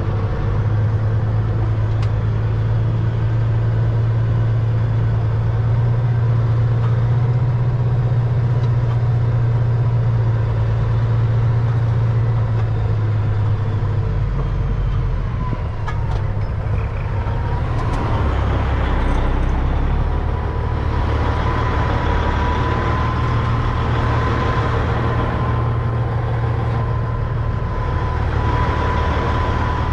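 Peterbilt 379 semi truck's diesel engine running steadily. About halfway through its note drops lower and a thin, steady high whine comes in over it.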